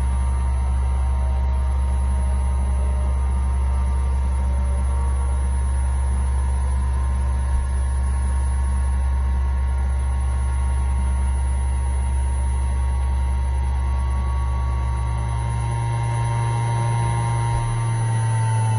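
Steady machine hum: a low drone with a high whine near the top that slides lower in the last few seconds.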